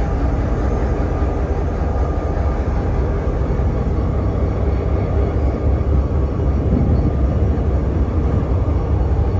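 Diesel-electric locomotive engine running, a loud steady low rumble heard close up from the locomotive's own walkway.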